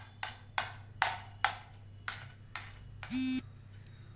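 Steel spoon clinking and tapping against a ceramic plate while pressing a soft mixture into shape: a series of sharp, ringing clinks. Just after three seconds in, a short electronic beep.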